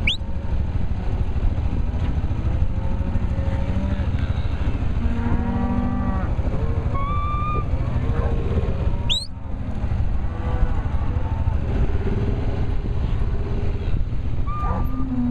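Hereford cows and calves mooing and bawling at many points over a steady low engine rumble, with two sharp rising whistles, one at the start and one about nine seconds in.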